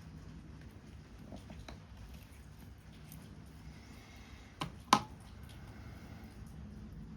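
Paper-craft work at a desk: a few faint taps, then two sharp clicks close together about four and a half seconds in as tools or paper parts are handled, over a low steady hiss.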